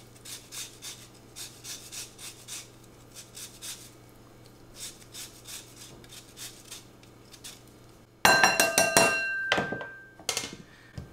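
Lemon being zested on a fine metal rasp grater: quiet, rhythmic scraping strokes, a few a second. About eight seconds in comes a much louder clinking clatter that rings briefly, followed by a few lighter knocks.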